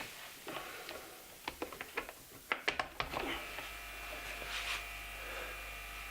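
A few clicks and knocks of plugging in, then about three seconds in a 60-litre-per-minute aquarium air compressor switches on and runs with a steady electric buzz.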